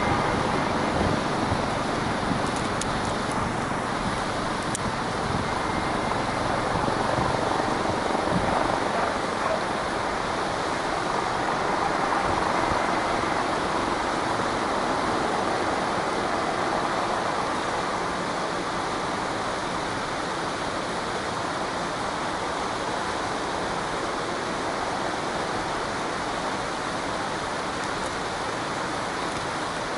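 Search-and-rescue helicopter flying low and close: a steady rush of rotor and turbine noise, a little louder in the middle and easing off in the later part.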